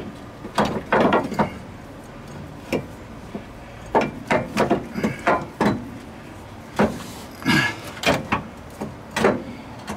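Irregular knocks and clunks of a steering gear being worked by hand against the surrounding metal parts under the car, in short clusters with gaps between them.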